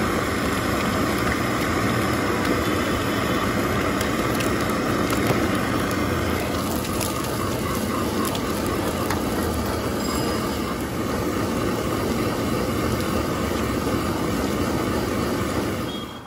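Steady loud street noise with no clear pitch or rhythm, cutting off sharply near the end.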